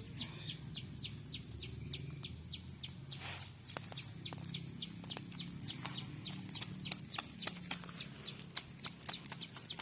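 Birds chirping over and over in short, quick notes above a steady low hum, with a run of sharp clicks in the second half.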